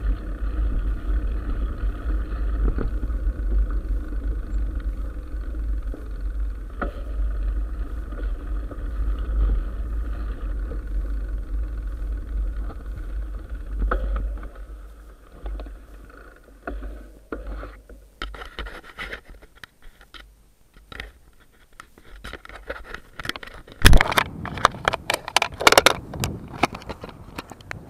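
Mountain bike rolling over a gravel track: a steady rumble of tyres and rattling bike, with wind on the microphone. About halfway it dies away, and near the end come loud scrapes and knocks close to the microphone.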